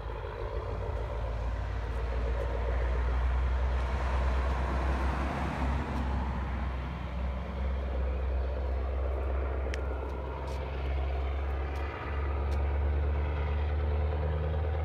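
Scania T164 580's V8 engine running through loud exhaust pipes as the truck drives, a deep steady drone that briefly dips in level twice, about halfway through and again a few seconds later.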